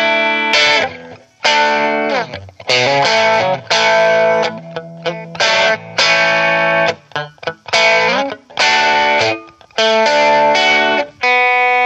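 Electric guitar on its bridge pickup played through a Trinity tweed-style amp turned up to 7: a run of strummed chords, each stopped short, with a few sliding notes between them.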